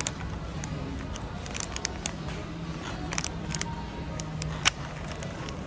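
Shop ambience: a steady low hum with scattered light clicks and clinks, the sharpest one a little under five seconds in.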